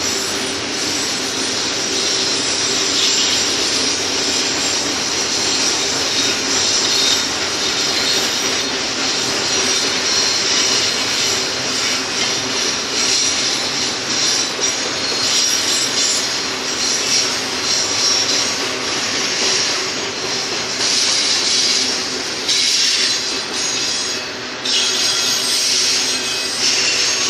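Double-stack container cars of a freight train rolling past on a curve: a steady, loud rolling noise of wheels on rail with squealing wheels.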